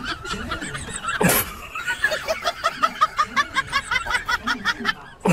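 A person laughing: a sharp loud burst about a second in, then a long, even run of quick short laughs, several a second, that fades out near the end.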